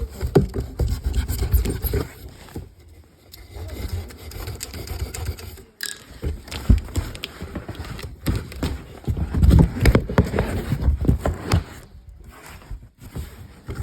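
Scraping, knocking and rustling of a large cardboard box being handled and opened, with uneven knocks and short pauses.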